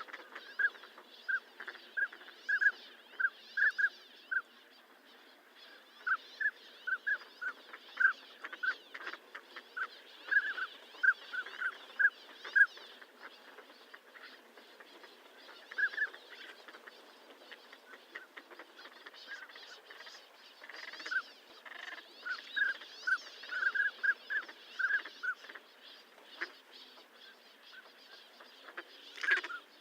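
Northern pintail calling: short, high calls given in quick runs of several at a time, with pauses between the runs, over a faint background of natural ambience.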